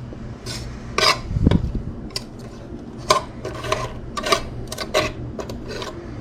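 Utensils scraping and clinking against a dish while cooked possum meat is pulled off the bones: a string of short, irregular scrapes and clinks, several a second.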